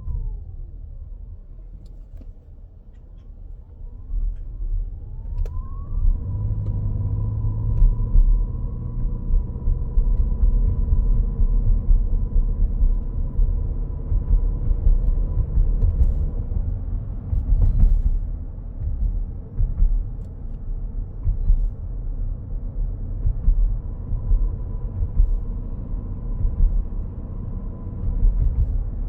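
High-pitched electrical whine from a 2025 Toyota Grand Highlander Hybrid while driving, over road rumble in the cabin. In the first few seconds the whine slides up and down in pitch; it then settles into a thin steady tone, fades out about halfway through and returns near the end. The uploader reports this persistent noise as a fault, most noticeable under acceleration.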